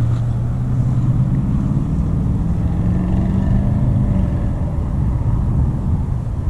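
A steady engine hum that fades out about four seconds in, over a continuous low rumble of wind on the microphone.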